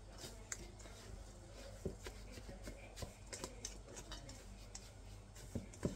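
A utensil scraping and clicking against a stainless steel mixing bowl as a crumbly semolina mixture is stirred: scattered light clicks and scrapes, a few a second.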